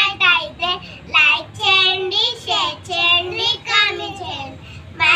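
Two young children singing together in high voices.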